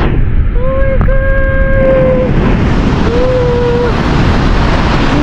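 Steady roar of a large waterfall plunging into a gorge, with wind buffeting the microphone. Twice a long, held humming tone sounds over the roar, the first for about a second and a half, the second shorter.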